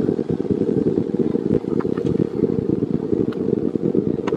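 Wind buffeting the microphone: a loud, steady low rumble that flutters irregularly, with a few faint clicks.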